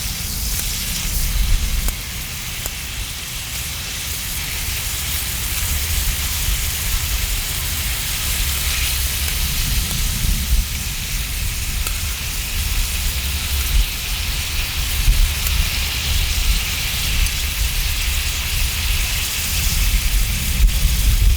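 Beef tenderloin sizzling on a cast-iron cauldron-lid griddle: a steady frying hiss over a low rumble.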